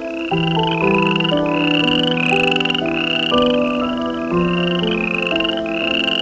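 An animal call repeating about twice a second, each call a short chirp rising in pitch, over background music of held notes that change every half second or so.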